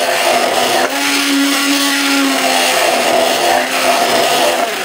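Immersion (stick) blender running in a tall plastic beaker, blending tomatoes, onion and garlic into a coarse chutney. The motor whine is steady, with a brief dip just before a second in and a change in its hum about halfway through.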